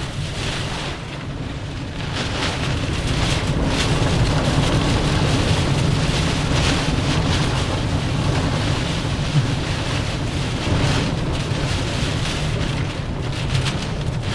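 Hurricane wind and driving rain buffeting a vehicle, heard from inside the cabin: a steady low rumble with repeated gusts of rain hissing across the windshield, growing louder about two seconds in.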